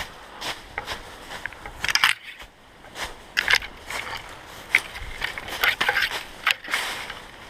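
Irregular crunching and scraping, a sharp rustle every second or so, of a player moving through dry undergrowth.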